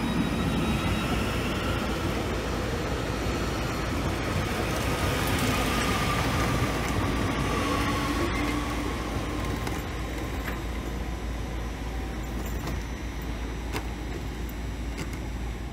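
Electric multiple unit pulling out of the platform past the microphone: a whine from its motors glides up and then down in pitch over the rumble of the wheels, and fades as the train moves off. The second half is quieter, with a few light clicks as another train approaches in the distance.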